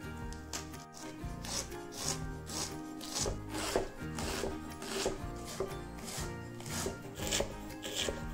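A chef's knife slicing through savoy cabbage and striking a wooden cutting board, steady cuts about twice a second.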